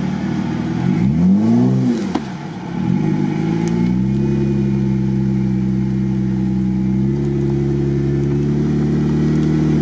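Jeep Wrangler Rubicon engine revving up and back down about a second in, then held at steady high revs under load with a slight step about seven seconds in, straining to push the vehicle through deep mud with its front wheel sunk in the rut.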